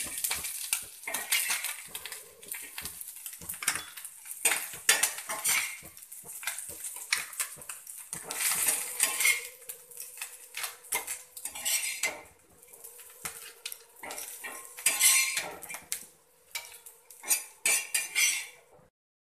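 A flat spatula scraping and clinking on a tawa as fried small fish are scooped off it. Irregular metallic clatters run throughout as the fish go into a steel bowl.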